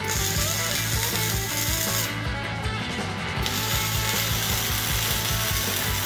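Wire-feed (MIG) welding arc crackling on steel in two runs: about two seconds, a break of just over a second, then about three seconds more. Background music with a steady beat plays throughout.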